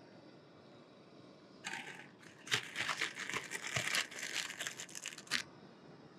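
Plastic instant-ramen wrapper crinkling and crackling as it is torn open and handled by hand. The crinkling starts about a second and a half in, runs in quick bursts for about four seconds, and stops a little before the end.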